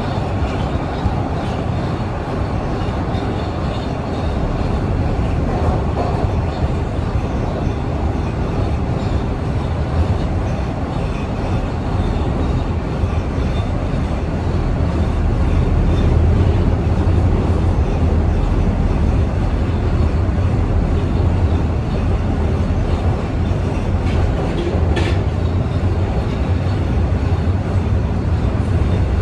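TTC Line 1 subway train running at speed, heard from inside the car: a steady low rumble of wheels on rail and traction motors, growing louder about halfway through. A brief high click comes near the end.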